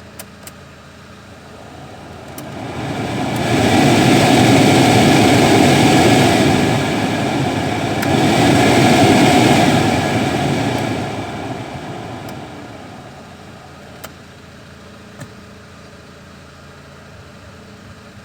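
Peugeot 206 air-conditioning blower fan switched on: its rushing air builds up over a couple of seconds, runs loud for about seven seconds with a brief easing in the middle, then winds down. The car's engine idles underneath, with a few small clicks.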